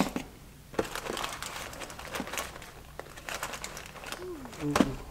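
Paper food wrapper crinkling in two spells as it is handled, with a short pitched sound and a knock near the end.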